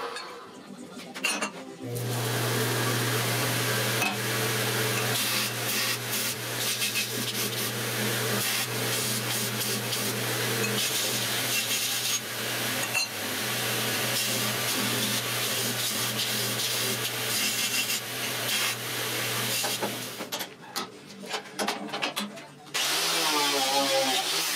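Belt grinder running with a steady motor hum while steel is ground against the moving belt. The grinding stops about four-fifths of the way through, followed by a few short, scattered sounds and then a different loud shop-tool noise near the end.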